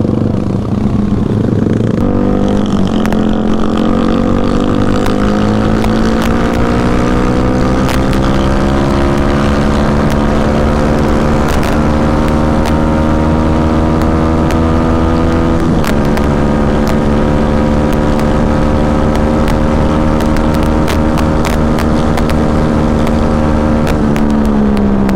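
Yamaha WR155R's single-cylinder engine pulling hard under full throttle on a top-speed run, its pitch climbing steadily. There is a short break in the pitch about sixteen seconds in, then the climb goes on until the pitch falls as the throttle eases near the end.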